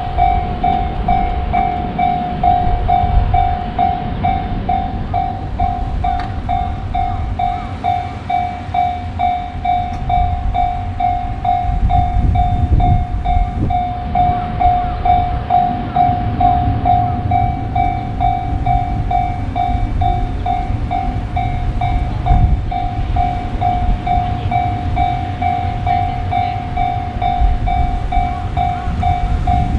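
Japanese level-crossing warning bell ringing in a steady, even rhythm over the low rumble and clatter of a passing train.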